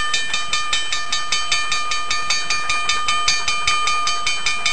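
Intro sound track of rapid, even clicking, about five strokes a second, under several held high tones.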